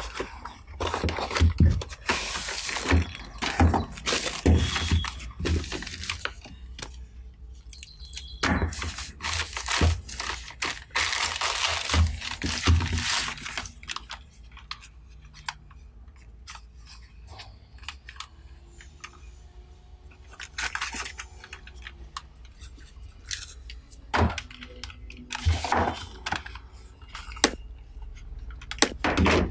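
Cardboard shipping box being torn open and its packaging rustled and crinkled, busiest in the first half, then quieter handling noises with a few scrapes and knocks near the end.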